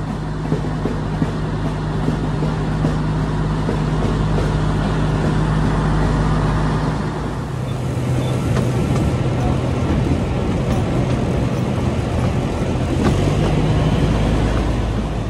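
Narrow-gauge diesel locomotive's engine running under load as the train pulls away, a steady drone that drops to a lower note about halfway through, over the rumble of the moving train.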